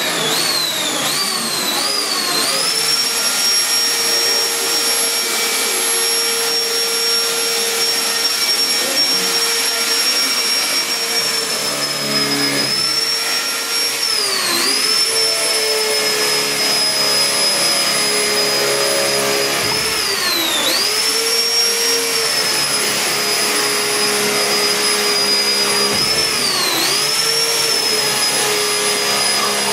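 Corded electric drill running at full speed with a steady high whine. Several times its pitch drops as the bit bites into the wall board and then climbs back as the hole cuts through.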